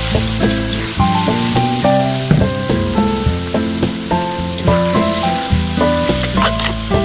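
Sliced beef sizzling as it sautés with garlic in a hot metal wok, stirred with a metal spatula, with a few sharp scrapes near the end. Background music of quick stepping notes plays over it.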